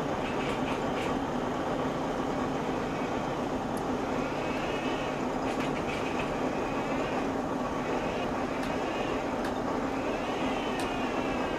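Steady machinery noise with a low hum, a higher whine that rises and falls twice, and scattered light clicks.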